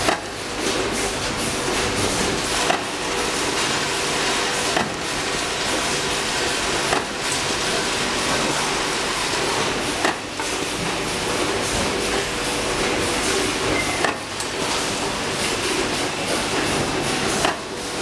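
YH003A semi-automatic crimping machine for 3-pin plug inserts working, its press striking with a sharp knock about every two to four seconds as terminals are crimped onto the cable's wires, over steady machine noise.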